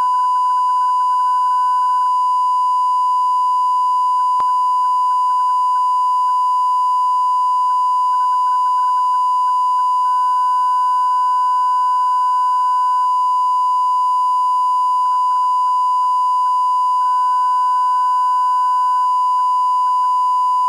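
A steady 1 kHz reference tone that does not change in pitch or level. It is the line-up tone played with colour bars at the head of a broadcast tape, used for setting audio levels.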